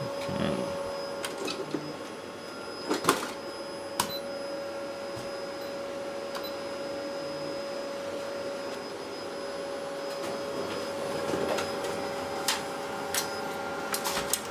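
Minolta Di450 digital photocopier running a blank test copy: a steady machine hum with a constant tone, broken by several sharp clicks from its mechanism. The page comes out smeared with toner.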